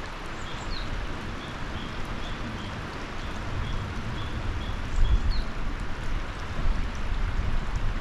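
A shallow mountain river rushes steadily over gravel and stones. A small bird repeats a short high chirp two or three times a second through the first half, with a couple of brief rising notes. A low rumble swells about five seconds in.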